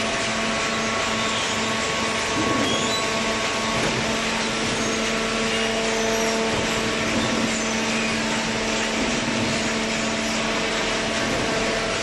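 Hydraulic baler running: a steady machine hum with a few held tones over a broad hiss, from the pump motor and hydraulics working.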